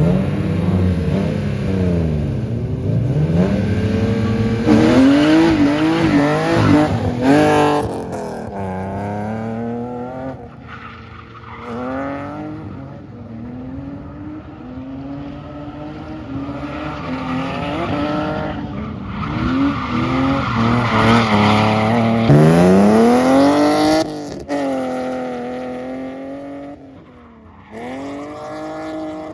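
Drift car engine revving hard, its pitch rising and falling again and again as the throttle is worked through the slides, with tyre squeal during the drifts. It grows fainter near the end as the car moves off across the pad.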